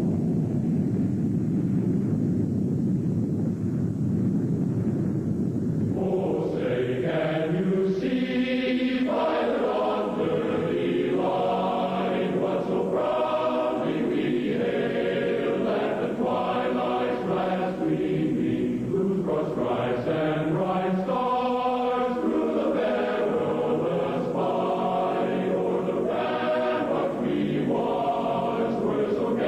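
A low rumbling noise, then from about six seconds in a choir singing slow, held notes.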